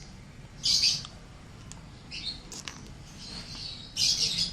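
Short high-pitched chirps, four of them, the loudest near the start and near the end.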